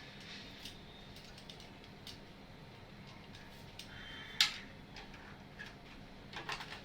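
Faint clicks and knocks of a CPU cooler fan being handled and set onto the motherboard, with one sharper click about four and a half seconds in.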